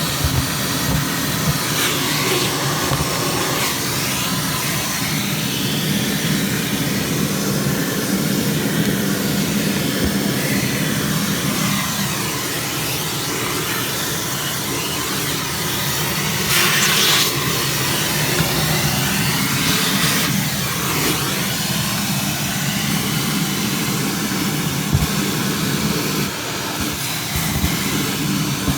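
Vacuum cleaner running steadily, sucking loose, crumbling insulation out of a gas boiler's cabinet, its sound shifting briefly a few times.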